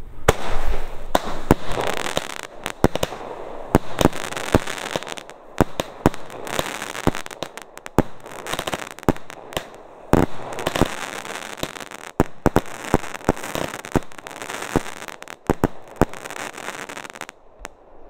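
Diamond Saturn 25-shot firework battery firing: many sharp bangs in quick, irregular succession as shells launch and burst overhead, with a noisy wash between them, dying away near the end.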